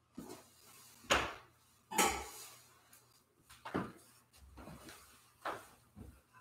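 A few light clinks and knocks, about one a second, from altar vessels such as the chalice and cruets being set down and handled during the silent offertory. The loudest two come about one and two seconds in.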